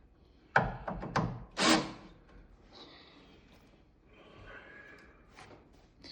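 Cordless drill work on railing screws: a quick run of knocks and thuds from about half a second to two seconds in, then a short, fainter drill whir around the middle.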